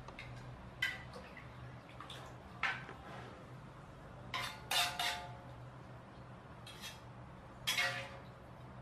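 Metal cooking utensils clinking against cookware: about eight irregular strikes with a short ring, the loudest a quick cluster about five seconds in and another near the end, over a steady low hum.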